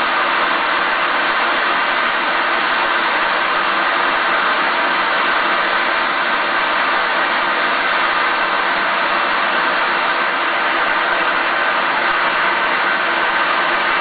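Water pouring down a waterfall, a loud, steady, unbroken rush.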